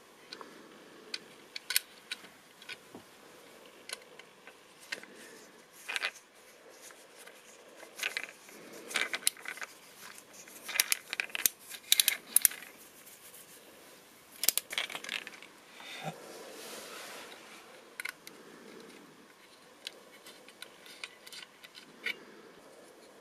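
Close-up handling sounds of a 1:24 scale model car's small plastic and metal parts being fitted together: scattered clicks, taps and short scrapes. The clicks come thickest around the middle, where a precision screwdriver turns a tiny screw into the body.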